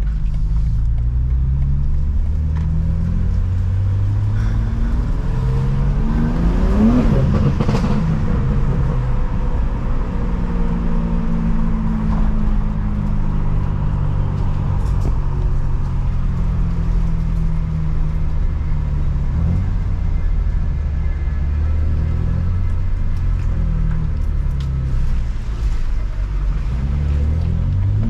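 Car engine and exhaust under way, mostly a steady drone, with a rising rev as it accelerates about a quarter of the way in.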